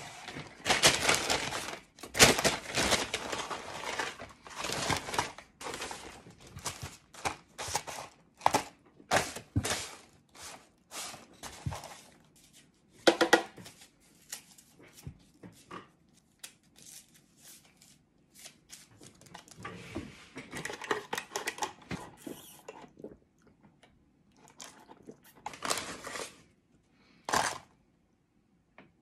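Paper fast-food bag and wrappers rustling and crinkling in irregular bursts as food is unpacked, with dull thunks of items set on the table and the tearing of a paper straw wrapper.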